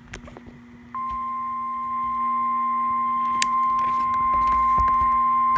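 Emergency alert warning tone for a tornado warning: a single steady pitch, like the NOAA Weather Radio warning alarm, switches on about a second in and holds, after a few faint clicks.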